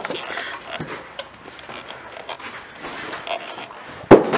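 Rustling handling noise and footsteps while walking through a doorway, then one sharp bang near the end as a door swings shut.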